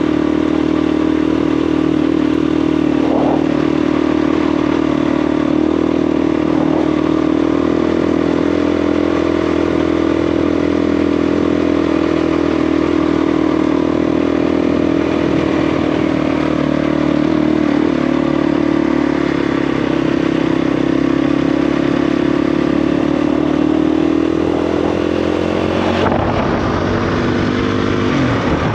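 KTM 350 EXC single-cylinder four-stroke dirt bike engine running under way at fairly steady revs, its pitch drifting gently up and down. Near the end there is a brief sharp knock, and then the engine note rises.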